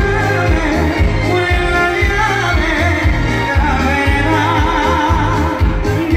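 Male vocalist singing live into a handheld microphone over amplified music with a steady beat, heard through a stage PA.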